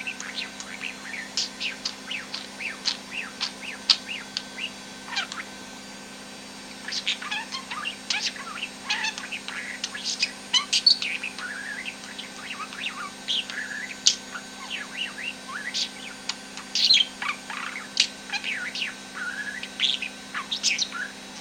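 Budgerigar chattering and warbling: a rapid, irregular run of chirps, clicks and squeaky glides, with a short lull about six seconds in.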